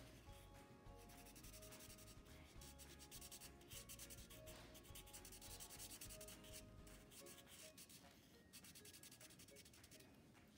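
Black felt-tip marker scratching on paper in quick back-and-forth strokes as a spot is coloured in, faint, with the strokes thinning out near the end. Soft background music runs underneath.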